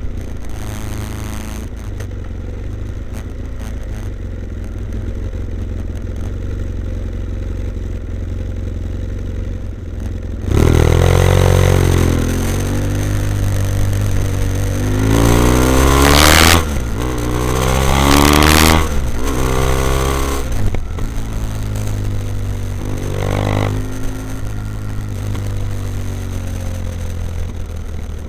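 BMW F800ST's parallel-twin engine through a Blue Flame twin-port exhaust with both baffles in, running low and steady. About ten seconds in the throttle opens and the engine pulls away, its note rising and dropping through several gear changes before settling to a steady cruise.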